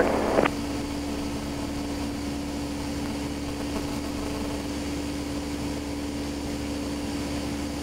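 Steady drone of a light aircraft's engine and propeller heard in the cockpit, with a held hum tone. A radio transmission cuts off with a click about half a second in.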